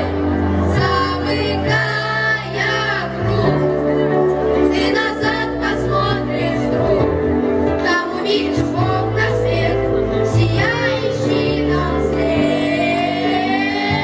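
Children singing a song into microphones over a backing track through loudspeakers, with a steady bass beat.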